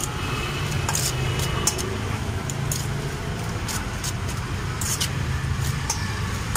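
Metal spoon clinking and scraping against a stainless steel bowl as pomelo pulp is tossed, with short sharp clicks every second or so over a steady rumble of road traffic and a running vehicle engine.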